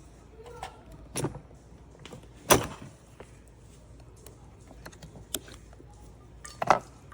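Three separate knocks and clacks, the loudest about two and a half seconds in, with a few fainter clicks between: parts of a Cuisinart coffee center being handled.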